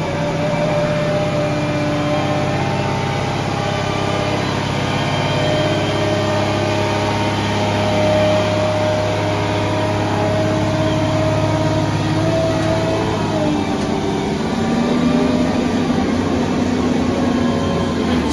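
Diesel power pack of a self-propelled modular heavy-haul transporter running steadily while the multi-axle trailer carrying a large power transformer rolls slowly, with a few higher held tones over the low engine note.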